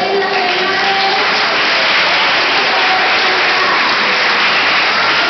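Audience applauding, a dense steady clapping that swells about two seconds in.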